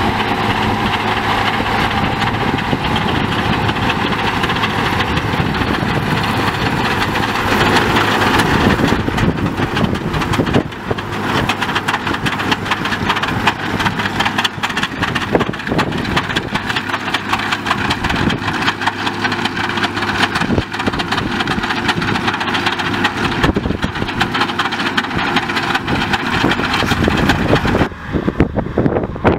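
Turbocharged diesel engine of an MB-trac 1600 turbo tractor running steadily under load, mixed with the clatter of a Krone Turbo 5000 loader wagon's pickup gathering cut grass.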